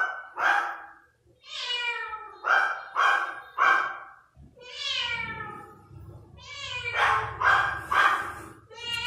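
A young tabby kitten meowing over and over, about ten short cries in quick groups, several of them sliding down in pitch.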